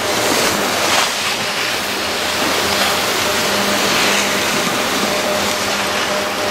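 Steady rushing hiss of skiing downhill: skis sliding over packed snow, with wind rushing over the microphone. It swells slightly about a second in and again around four seconds in.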